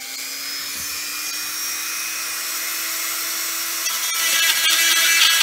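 Dremel rotary tool with a drill bit running, a steady motor whine that climbs slightly in pitch as it spins up. About four seconds in, the bit starts cutting into the taxidermy form, and the sound gets louder and gritty.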